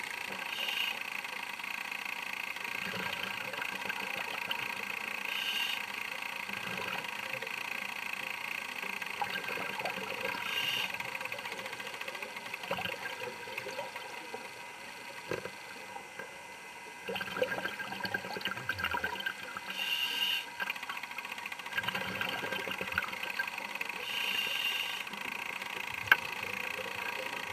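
Scuba diver breathing through a regulator underwater: a short hiss of inhalation about every five seconds, and bursts of bubbling as exhaled air is let out, over a steady hum.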